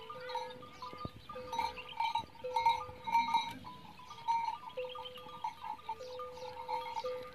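A herd of white zebu cattle on the move, with a string of short, clear held tones repeating and overlapping throughout.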